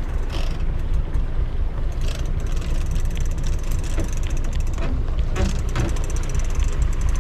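Boat engine running steadily as a low rumble, with faint light ticking in the second half.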